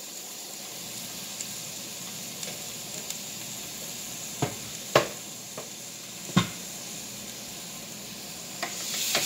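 Marinated steaks sizzling on the hot plate of a Cuisinart Griddler contact grill, with three sharp knocks from handling the meat and grill. Near the end the sizzling swells as the grill's lid comes down onto the steaks.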